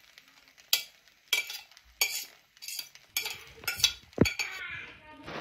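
Utensils scraping and clinking against a metal cooking pot as cooked pasta is mixed, a string of sharp scrapes and clinks about every half second.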